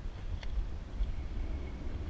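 Low, uneven rumble of wind buffeting the microphone, with a light click about half a second in and a soft knock about a second in.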